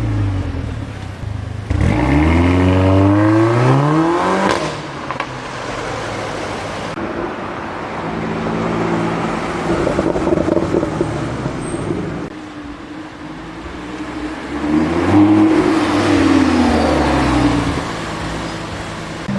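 Supercar engines accelerating on the street. About two seconds in, one car accelerates hard, its engine note climbing steeply. The middle holds a steadier engine note, and near the end another car revs up and goes by, its pitch rising and then falling.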